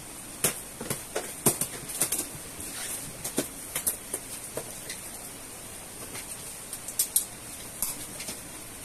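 Box cutter slitting packing tape on a large cardboard box, with irregular sharp crackles and taps of tape and cardboard as the flaps are worked open, over a steady hiss.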